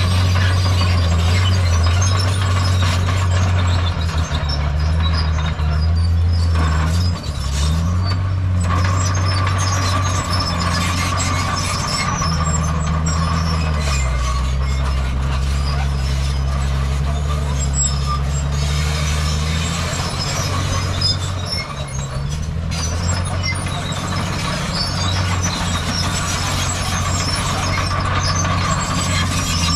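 Diesel engines of heavy earth-moving machinery (bulldozer and dump trucks) running continuously under work, the engine note dipping and rising several times, with a steady high whine over it.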